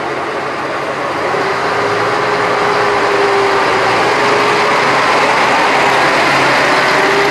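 Hojo Railway Flower 2000 diesel railcar pulling out of the station: its diesel engine runs under load and the rumble of the train grows louder over the first couple of seconds as it passes. Near the end the engine note climbs in pitch as it picks up speed.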